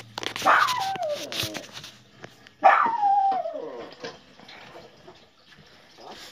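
A dog whining: two long whines, each falling steeply in pitch, about two seconds apart.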